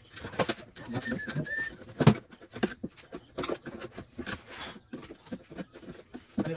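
Irregular clicks and knocks of hands and a tool working along a window-screen frame, the sharpest knock about two seconds in. A brief faint high whistle-like tone sounds about a second in.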